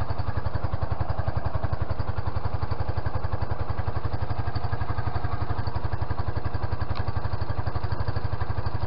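1993 Suzuki GN125's single-cylinder four-stroke engine running steadily at idle, with a fast, even pulsing beat that holds constant throughout.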